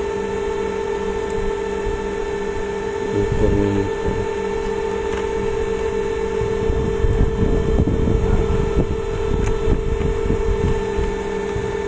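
Steady mechanical hum, with irregular knocks and scrapes of hand tools working on a steam iron's casing, a short burst about three seconds in and a busier stretch in the middle.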